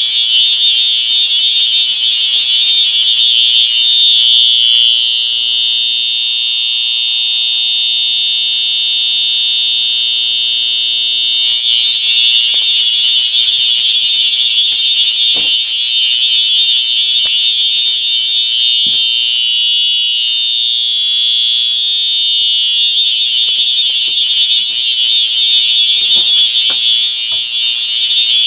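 FCI HEF-STW fire alarm horn strobe, a rebranded Faraday three-tone unit, sounding on its horn tone. It is a loud, steady, high-pitched horn with no breaks.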